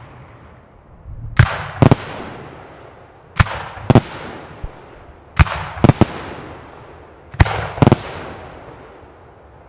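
Aerial firework shells going off in a display: sharp bangs in groups of two or three, about every two seconds, each trailing off in a long echo.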